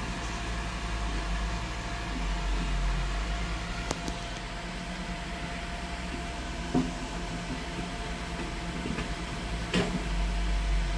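A truck engine runs steadily at low idle, a low rumble, with a few brief sharp knocks over it.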